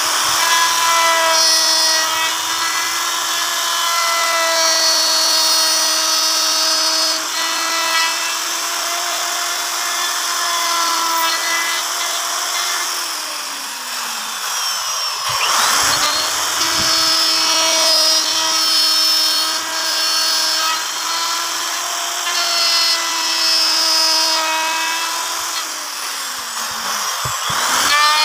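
Electric wood router running at speed, its bit cutting grooves into a wooden panel: a steady high motor whine mixed with the rasp of wood being cut. About halfway through, the whine drops briefly in pitch and then comes back up.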